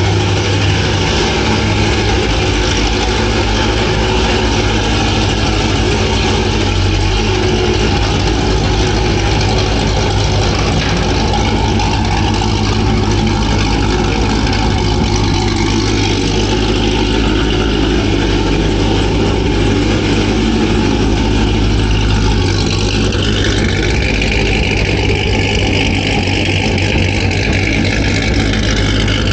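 Cammed supercharged 6.2-litre LT4 V8 of a C7 Corvette Z06 running at a steady idle as the car creeps out at walking pace.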